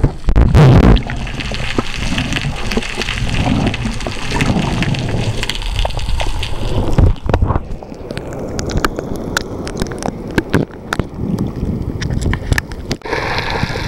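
Water sloshing and bubbling around an underwater camera as the swimmer moves up through the surface, with many sharp separate clicks in the second half.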